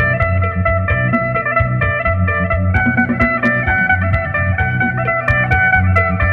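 Electric phin, the Isan Thai lute, plucked in a fast run of repeated picked notes over a pulsing low bass.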